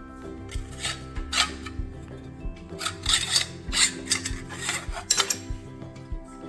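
Hand-tool work on metal engine parts: rough rasping, scraping strokes in two clusters, the second longer and louder, over a steady background music bed.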